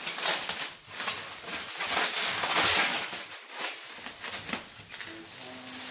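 Plastic sheeting and bubble wrap crinkling and tearing as hands pull the packing apart, a rapid irregular crackle that is loudest about halfway through.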